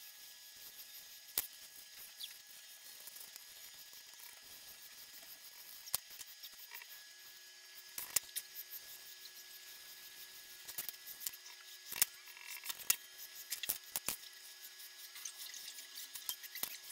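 Faint scratching and rubbing of pencil and brush on drawing paper, with scattered sharp clicks of pencils knocking against the table, over a steady background hiss.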